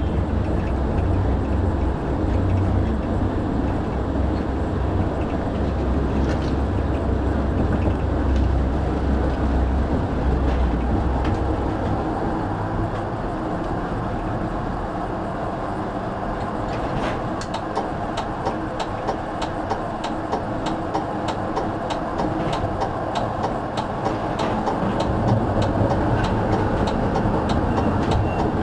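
EGT6 electric tram running on its track, heard from the driver's cab: a steady rumble of wheels and running gear, heavy and low for the first dozen seconds and then lighter. From a little past halfway, short regular clicks join in.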